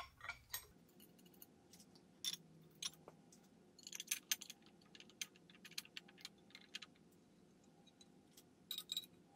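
Light, irregular metallic clicks and clinks of small Allen head screws being handled and started by hand into aluminium coil mounting plates on an engine's cam cover, with a quick cluster about four seconds in and another near the end.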